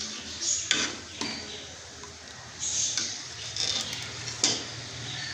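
A metal spoon stirring and scraping in a cooking pot, with a few short scrapes and light clinks at uneven intervals, as whole spices are roasted.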